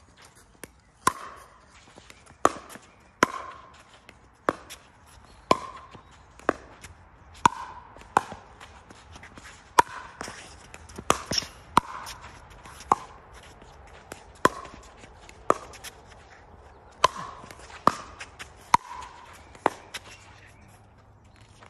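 Pickleball rally: the hollow plastic ball pops off paddles and bounces on the hard court. The hits are sharp and come irregularly, about a second apart, each with a brief ringing.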